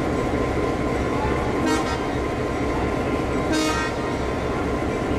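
Diesel locomotive idling with a steady low rumble, and two short horn toots about two seconds apart.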